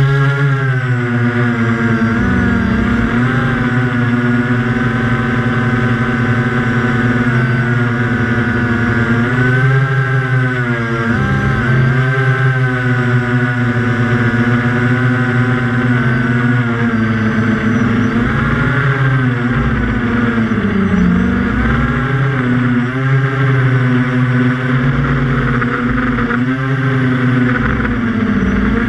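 Quadcopter's electric motors and propellers whining, heard close from the onboard camera. The pitch rises at the start as it lifts off, then keeps rising and falling as the throttle changes in flight.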